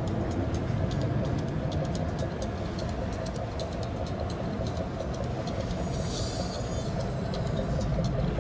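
Boat engines running with a steady low rumble, with a brief hiss about six seconds in.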